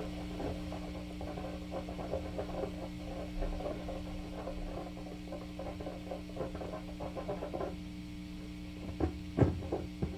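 Dense, irregular scratching and crackling over a steady electrical hum, with a few louder knocks near the end.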